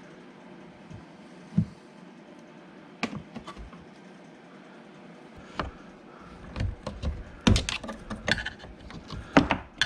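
Small plastic clicks and taps from hands working the door-handle light and its housing inside a car door, a few scattered ones at first, then a busy run of clicks and knocks from about six and a half seconds in.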